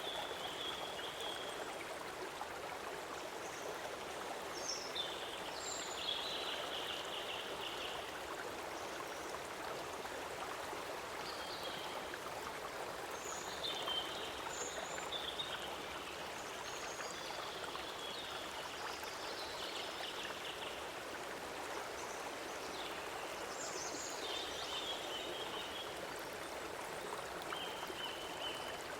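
Stream water flowing steadily, with short high chirps heard now and then over it.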